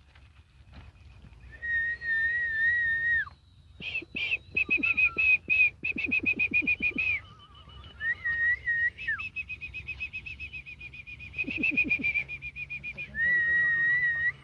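Donkey braying in repeated cycles: long, high, steady tones alternating with rapid pulsing runs.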